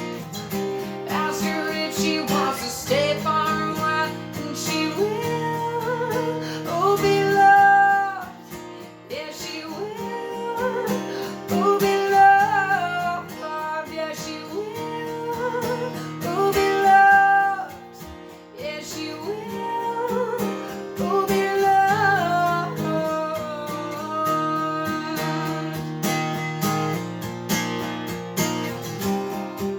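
Guitar strumming a steady rhythm while a woman sings the melody in long, gliding held notes.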